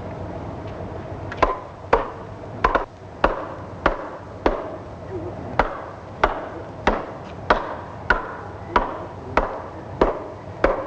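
Hammer blows driving a wooden ladder rail down onto its wooden rungs, fitting the rung ends into conical holes. After about a second and a half there are roughly a dozen and a half sharp knocks at a steady pace, about one every half second or so, each with a short ringing tail.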